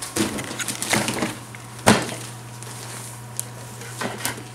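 Gift wrapping paper crinkling and tearing in a few short bursts, the sharpest about two seconds in, as a present is unwrapped.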